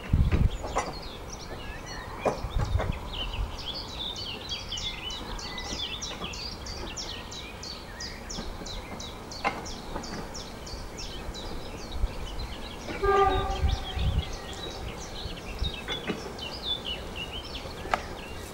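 Songbird singing a long, fast run of high repeated notes, with other birdsong around it. About thirteen seconds in, a short horn blast comes from a distant diesel railcar, among low rumbles.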